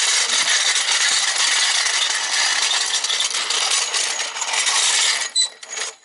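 Floor jack rolled across paver bricks: a steady rattling clatter from its steel wheels. About five seconds in the rolling stops and a few sharp metallic clinks follow as the jack is set in place.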